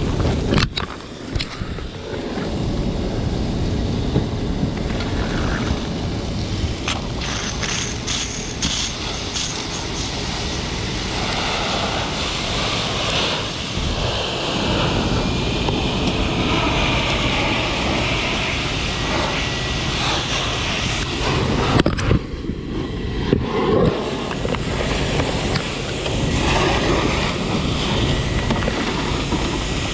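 Fire hose jet spraying water onto a burning lorry cab, a steady rushing hiss, with wind buffeting the microphone.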